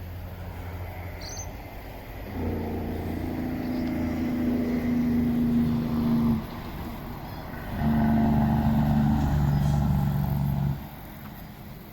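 A motor vehicle engine running in two stretches of a few seconds each, with a steady low note. Each stretch starts and cuts off abruptly, with a short lull between them.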